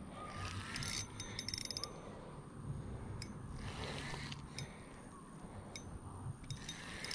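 Fishing reel working while a hooked striped bass is played: mechanical ratcheting and clicking that comes in a few bursts.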